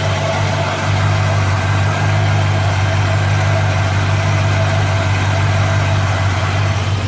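A 1957 Chevrolet's engine idling steadily, with an even low exhaust hum and no clack from the exhaust manifold, which the owner thinks is now sealed after tightening its rusted bolts.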